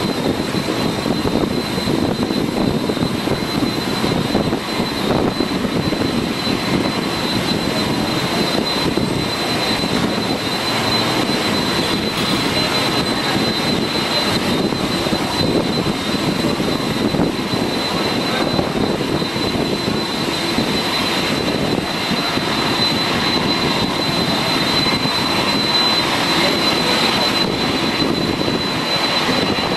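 Turbofan engines of a twin-engine widebody jet airliner running at taxi power: a steady rush with a high, even whine.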